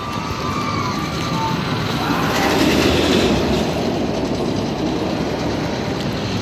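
Roller coaster train rumbling along its track, swelling to its loudest about halfway through and then fading.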